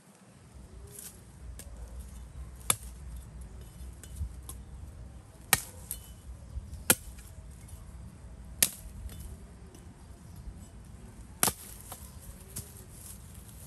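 Firewood being chopped with a blade: single sharp strikes into wood, a second or a few seconds apart at an uneven pace, about five loud ones and a few lighter ones.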